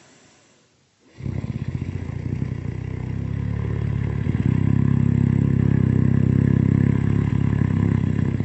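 One long, very loud rattling snore that begins about a second in and swells, loudest from about the middle on.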